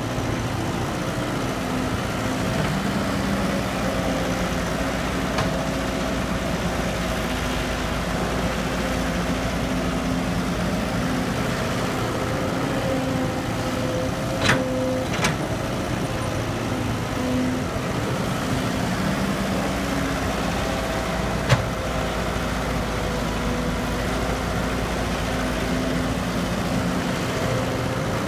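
Excavator's diesel engine running steadily with a constant hum, with a few sharp knocks about halfway through and again later, typical of the bucket and machinery working the soil.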